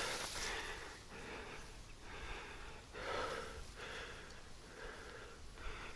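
A man breathing hard, with a soft breath about once a second.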